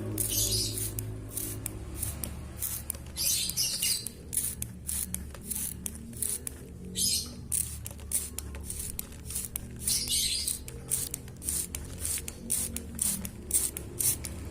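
Hand-pump spray bottle misting water over a caged bird in short hissing bursts, about four of them a few seconds apart, each from a slow squeeze of the lever. Many quick clicks and taps come between the bursts.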